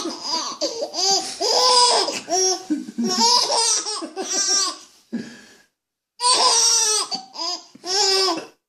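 Baby laughing hysterically in rapid, breathy bursts, set off by an adult's pretend sneezes. The laughter breaks off a little past halfway, then starts again in a second bout.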